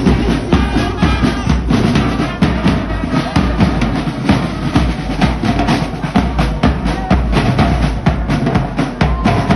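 Loud drum-driven music, with bass drum and snare drum beating a steady, dense rhythm.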